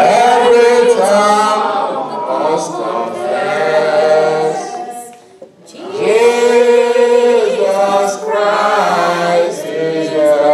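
Voices singing a hymn together unaccompanied, in long held phrases, with a short break for breath about five and a half seconds in.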